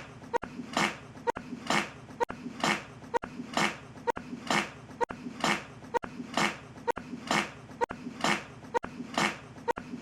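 Cow fart sound effect looped: a short burst repeated evenly about once a second, around ten times.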